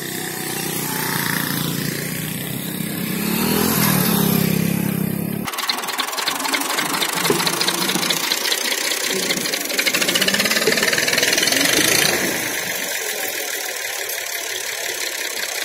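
Massey Ferguson tractor's diesel engine revving hard under load, pulling an uprooted tree stump on a rope. About five seconds in, the deep engine note cuts off abruptly and a harsher, rattling clatter takes over.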